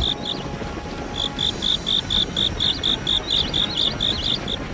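Cricket chirping at night in a steady run of short, high chirps, about four a second, starting about a second in.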